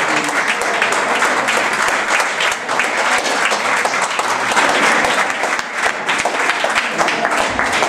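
An audience applauding, a steady dense clapping that carries on without a break.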